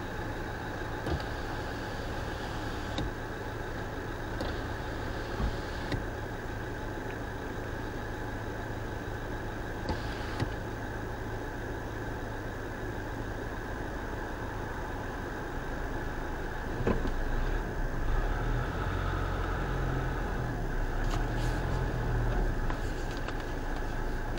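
Car engine idling steadily, heard from inside a stopped car. About two thirds of the way in, a deeper engine rumble swells for several seconds as a car moves close in front.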